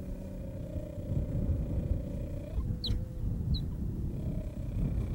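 Cheetahs growling in a defensive threat: a low rumbling growl with a held moaning tone that breaks off about two and a half seconds in and comes back near the end. Two brief high squeaks come in the gap.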